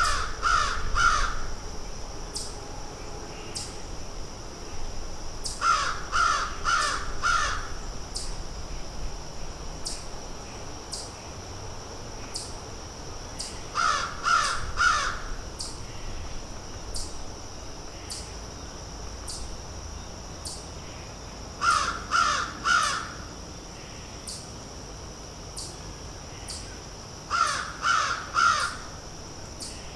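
A bird giving loud, harsh calls in runs of three or four, five runs in all, spaced several seconds apart, over a steady high-pitched drone and faint high ticks.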